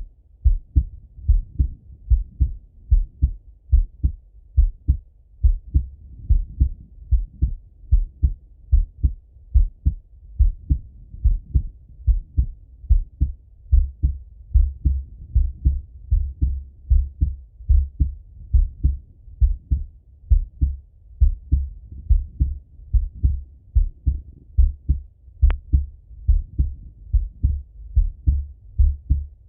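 A man's heartbeat heard through a Littmann stethoscope: steady, paired lub-dub beats. There is one faint click near the end.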